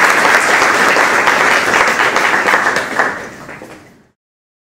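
Audience applauding, a dense patter of many hands clapping that thins and fades away to nothing about four seconds in.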